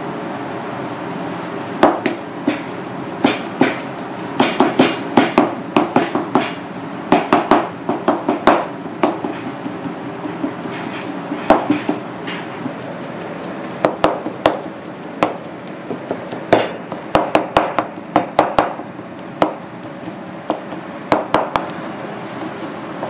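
Misono 440 chef's knife chopping raw fish into mince on a cutting board: quick, uneven runs of sharp knocks of the blade striking the board, with short pauses between runs, over a steady background hum.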